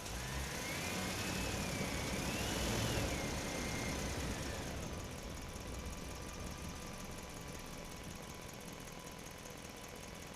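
Engine sound effect of an animated construction vehicle running. It is louder for the first few seconds, with a whine that rises and falls, then settles to a quieter steady hum.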